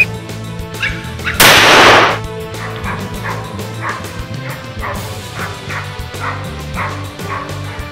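Hunting dog barking about twice a second as it bays a wild boar, over background music. About a second and a half in, a loud burst of noise lasting under a second.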